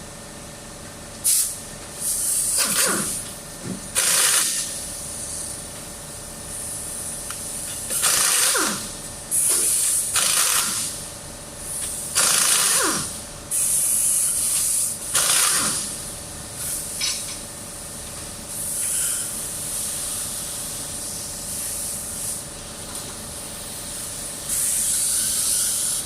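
Impact wrench firing in repeated bursts of one to two seconds, each with a high hiss and several ending in a falling whine as it spins down: the wheel's lug nuts being taken off.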